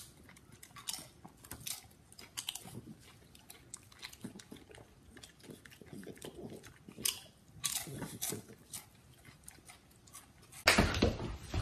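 Crunchy chewing: scattered soft crunches and clicks of a person chewing a snack, with a louder burst of noise near the end.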